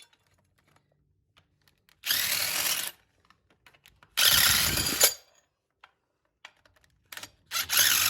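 A power tool runs in three short bursts, each under a second, backing out the bolts of an engine mount on a Honda K24 engine.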